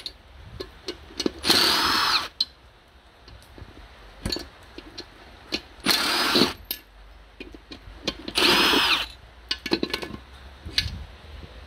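Cordless Milwaukee M12 Fuel driver run in three short bursts, each a whine that rises and falls, turning the bolts of a steel plate fixed to a ZF gearbox case. Light clicks and knocks of handling come between the bursts.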